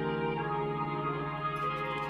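Soft, slow background music of held notes, with faint clicks over it near the end.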